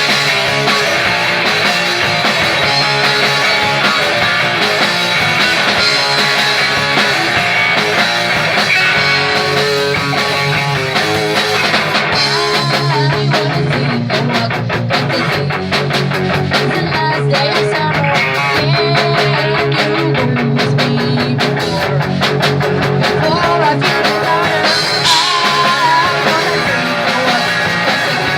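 Punk rock band playing live, with electric guitars and a drum kit.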